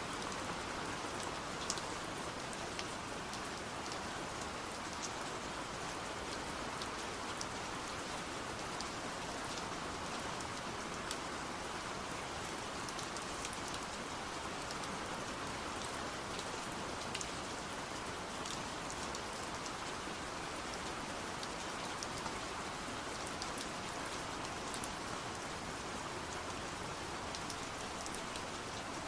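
Steady rain falling, a continuous even hiss with scattered individual drops ticking.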